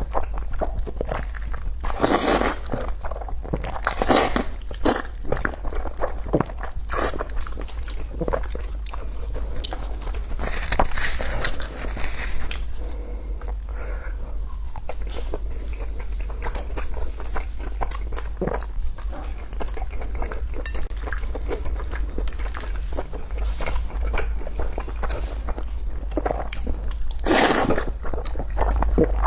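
Close-miked eating sounds: biting and chewing crunchy fried skewers, with loud crunches every few seconds and wet chewing and small clicks in between, over a steady low hum.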